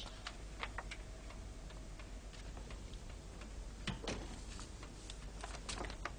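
Faint clicks and ticks at uneven intervals over a low steady hum, with a somewhat louder rustle about four seconds in.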